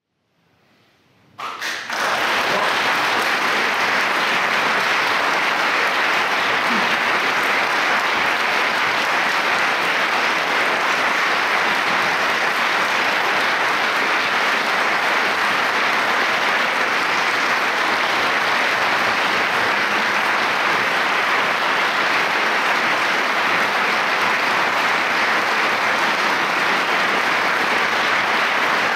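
Near silence for a moment, then an audience breaks into applause about a second and a half in and keeps clapping steadily.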